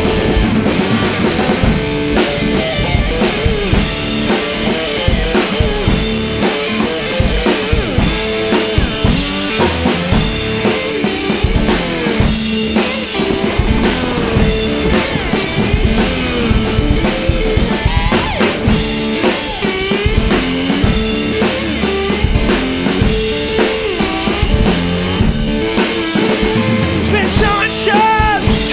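A two-piece rock band playing live, guitar over a full drum kit with bass drum and snare, in a passage without singing.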